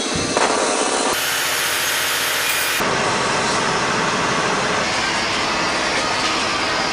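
Loud, steady rushing and rattling noise inside a Higer coach's cabin. Its character changes abruptly twice, about one and three seconds in.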